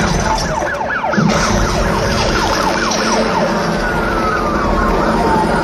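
Siren sound effect played over a concert PA: a fast yelping siren, about three rising sweeps a second, changing to a slower falling wail near the end.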